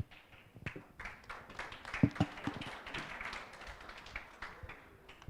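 Light tapping and clicking, with the loudest knocks about two seconds in, over a soft patter.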